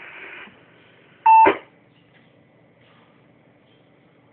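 Faint receiver hiss ends, then the Icom IC-9100 transceiver's speaker gives one loud, short beep near 1 kHz about a second in, cut off by a brief crackle of static. It is an end-of-transmission beep on the VHF channel.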